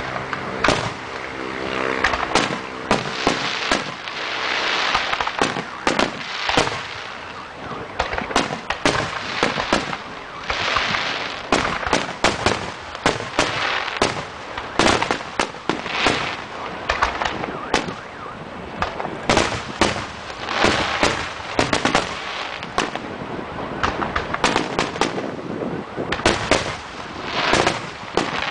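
Aerial fireworks going off in quick succession: many sharp bangs one after another, with hissing swells between them.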